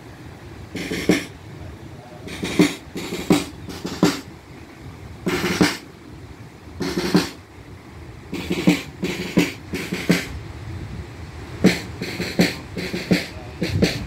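Marching drums, snare-like, beating sharp strokes at roughly one to two a second in an uneven rhythm.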